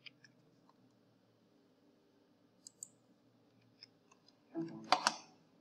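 A few faint computer mouse clicks, with a short, louder burst of voice about five seconds in.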